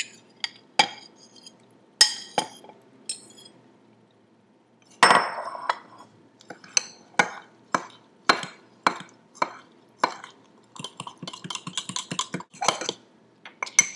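Metal spoon scraping and tapping a ceramic bowl as the batter is emptied into a mug, with a louder knock about five seconds in. Then the spoon stirring thick batter in a ceramic mug, clinking against its sides about three times a second, quicker near the end.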